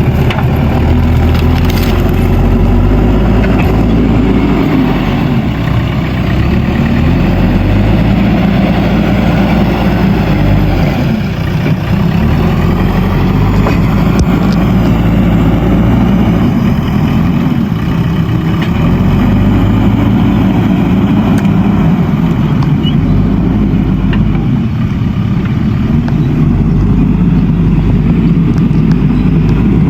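Backhoe loader's diesel engine running hard and steady while the machine works, its pitch rising and falling as the load changes.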